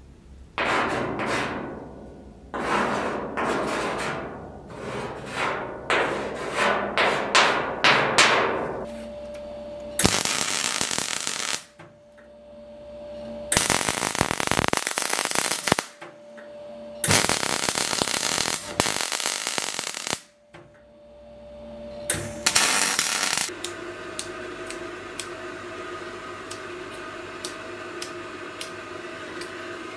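Metalworking during sword forging: a run of roughly a dozen hammer blows on steel, then four long, loud bursts of a noisy machine, then a steady machine hum with faint ticks.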